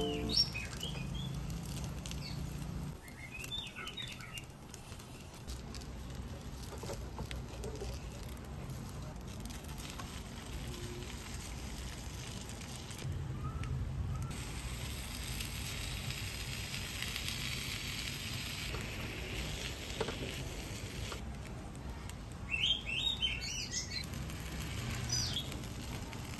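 Food cooking quietly in a small rectangular nonstick pan, with a silicone spatula working against the pan, and birds chirping now and then, a short burst of chirps coming near the end.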